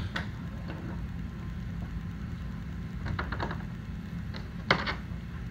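Steel tool parts clinking at a bench vise: a few light clicks, then one sharp metallic clink with a short ring about four and a half seconds in, over a steady low hum.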